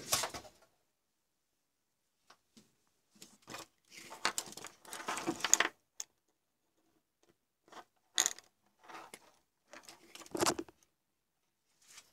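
Handling noises from a compact fluorescent bulb's plastic housing, circuit board and attached wires being moved about by hand: scattered clicks, knocks and rustles, with a longer stretch of rustling a few seconds in and a few single knocks near the end.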